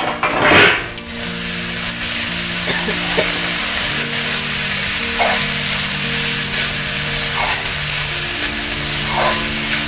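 Pork frying in oil in a large steel wok: a steady sizzle with a loud surge of sizzling about half a second in. A metal spatula stirs the meat and scrapes against the pan a few times.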